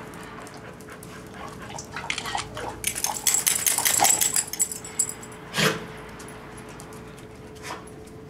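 Dogs moving and scuffling close by: a dense run of rapid clicks and metallic jingles for a few seconds, then one short bark a little past halfway.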